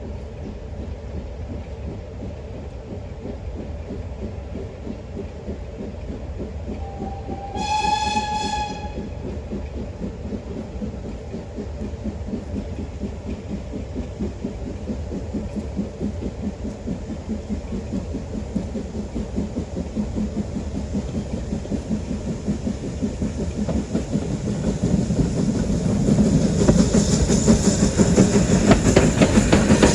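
A train gives a short, high single-note whistle about eight seconds in, then draws nearer, its running and the rapid beat of its wheels on the rails growing louder to a peak near the end.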